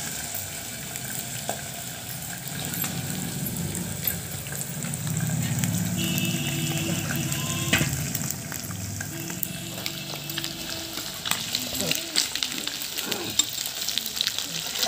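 Fish pieces sizzling as they deep-fry in hot oil in a kadhai, a steady frying hiss with scattered pops and crackles.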